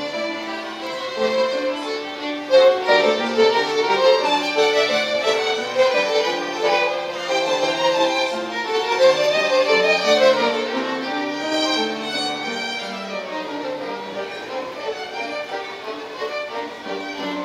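A small group of young violin students playing a tune together on violins, several bowed parts sounding at once with notes changing throughout.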